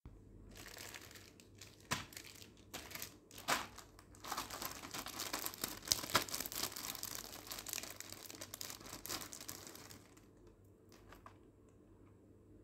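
Clear plastic jewellery packet crinkling as it is handled and opened, with a few sharper crackles. The crinkling dies down about ten seconds in.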